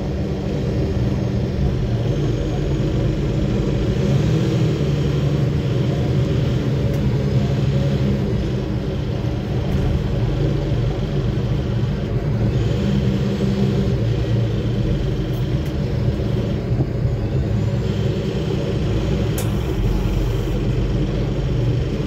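Inside a 2009 Nova Bus city bus under way: the engine's steady low drone mixed with road rumble.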